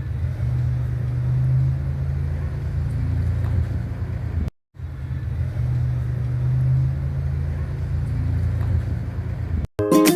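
Steady low rumble, like a running vehicle, broken by a short gap about four and a half seconds in; a louder burst of sound with distinct tones starts just before the end.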